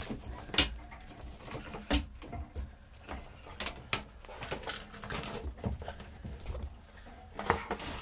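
Irregular knocks, clicks and rustling of someone shifting about and handling things in a cramped boat compartment, with the camera being moved around.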